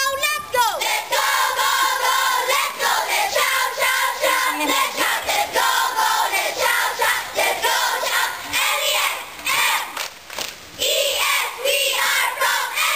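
A group of girl scouts shouting and singing a cheer together in unison, loud and rhythmic, with other scouts in the crowd joining in.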